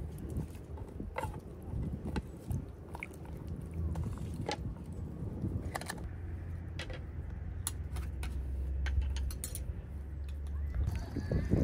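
Scattered light clicks and knocks of cooking utensils and ingredients being handled, over a steady low rumble.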